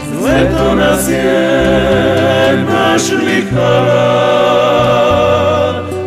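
Klapa song: a male vocal ensemble singing in close harmony, holding long chords over a low bass voice.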